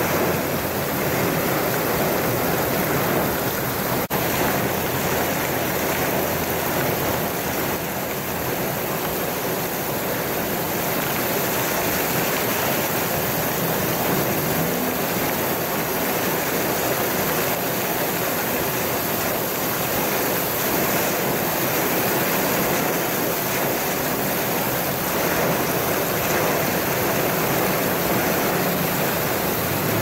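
Heavy rain pouring down onto wet pavement, driven by high wind, in a steady, unbroken rush of noise.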